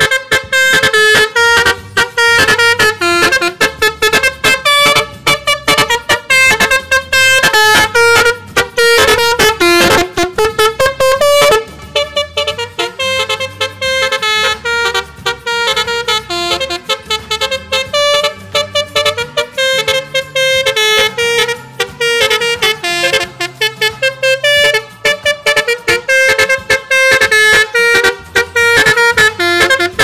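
Basuri musical air horn, a cluster of trumpets fed from an on-board compressor, playing a fast 'telolet' melody of short stepping notes without letup. It breaks off briefly about twelve seconds in.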